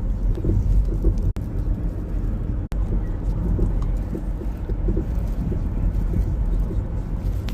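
Steady low road rumble heard from inside a moving car, with two brief cut-outs.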